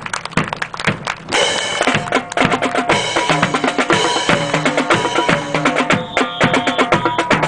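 Marching music with a steady snare and bass drum beat; pitched melody notes come in about a second and a half in.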